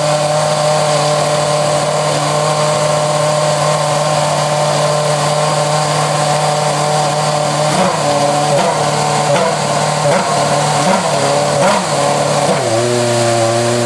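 Lotus Renault R31 Formula One car's Renault 2.4-litre V8 running stationary at a steady, raised warm-up idle. From about halfway in, a string of short throttle blips makes the pitch jump up and fall back several times. Near the end the engine settles to a lower idle.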